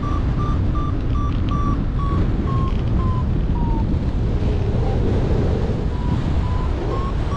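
Paragliding variometer beeping, about two short beeps a second, over steady wind rushing on the microphone. The beeps drift lower in pitch and stop about four seconds in, then return near the end, rising again: the thermal climb fades, then picks up.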